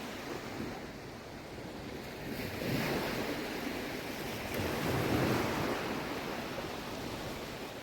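Small sea waves washing onto the shore, swelling twice, with wind buffeting the microphone.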